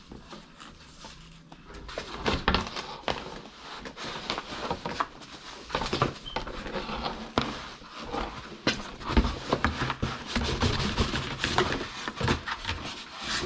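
Cardboard box and packing being handled during unboxing: a dense, irregular run of rustles, crinkles and taps that starts about two seconds in.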